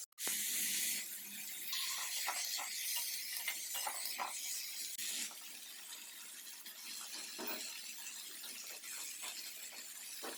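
Pumpkin pieces sizzling in a hot pan, with a metal spatula clinking and scraping against it during stirring. The sizzle is loudest in the first five seconds and then settles lower.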